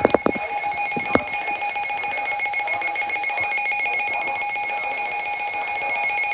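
Weather alert radio sounding its warning alarm: a loud steady electronic tone with a fast, even pulsing buzz over it, after a few sharp clicks in the first second or so.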